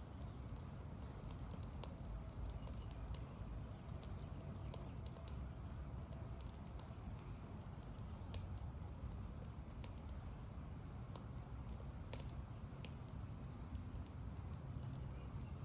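Campfire crackling: irregular small pops and snaps over a steady low rumble.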